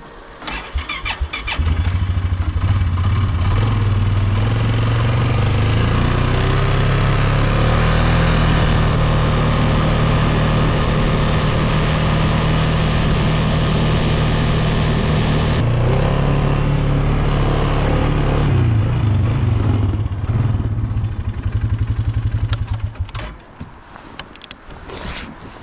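An engine comes up to speed about two seconds in and runs steadily at high revs, with a shift in pitch around two-thirds of the way through. It then winds down and fades near the end.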